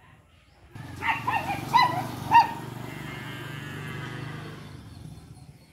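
A dog barks four or five times in quick succession about a second in, over a long, low animal call that lasts about four seconds.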